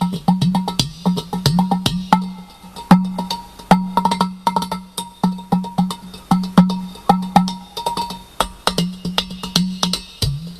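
Udu clay pot drum played by hand in a fast, uneven improvised pattern: sharp slaps and taps on the clay over a deep, ringing bass tone.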